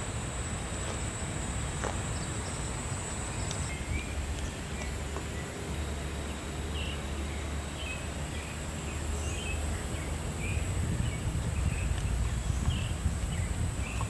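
Outdoor woodland ambience: a steady high-pitched insect buzz, louder for the first few seconds, with short bird chirps scattered through the middle, over a low rumble.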